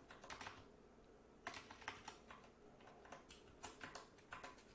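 Faint computer keyboard typing: irregular key clicks, with a few quicker runs of keystrokes in the second half.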